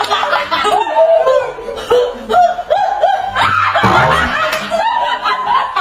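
A group of people laughing, with several voices chuckling and snickering in short, overlapping bursts.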